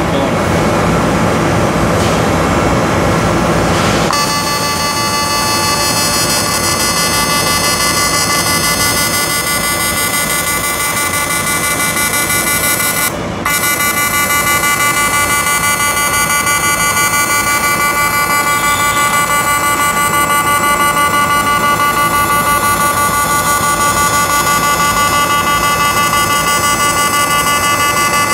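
Pulsed AC TIG welding arc on aluminium: a steady buzz made of several even tones. It starts about four seconds in, breaks off for a moment about halfway through, then carries on.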